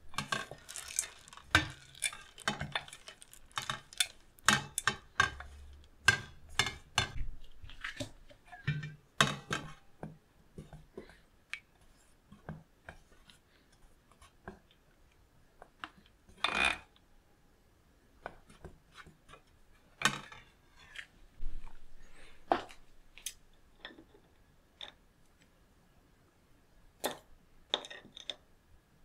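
Silicone spatula stirring chocolate callets in a stainless steel bowl: at first a dense run of clicks and scrapes as the hard callets are turned over, then thinning to scattered taps and scrapes against the bowl as the chocolate melts.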